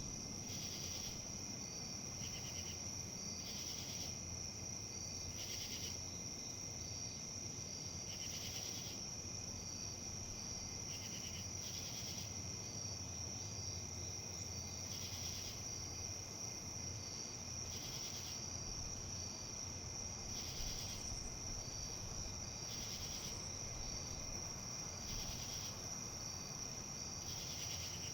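A steady, high-pitched insect trill, with short pulsed chirps from another insect repeating irregularly every second or two, over a soft, even rustle of wind.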